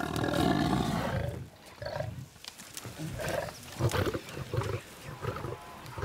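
Cape buffalo cow bellowing in distress while lions hold her down, with lions growling over her: one long, loud call in the first second and a half, then shorter grunts. Her cry is a distress call that can bring the herd back to her.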